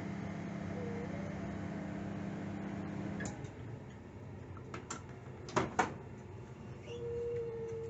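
Microwave oven running with a steady hum that cuts off about three seconds in, followed by scattered clicks and two loud sharp clicks from the oven door being opened. A short steady tone sounds near the end.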